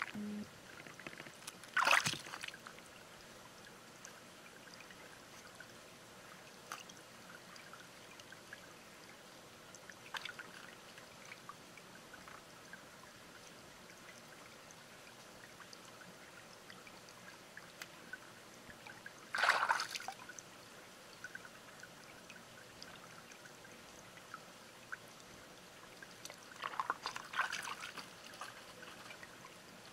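Shallow stream trickling steadily, with three brief louder bursts of noise: one about two seconds in, one a little after the middle, and a longer, ragged one near the end.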